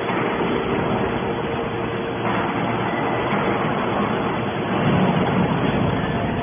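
Hydraulic aluminum can baler running: a steady mechanical noise with a faint constant tone, growing noisier about two seconds in.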